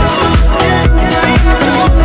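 Backing music: an upbeat song with a steady kick-drum beat, about two beats a second.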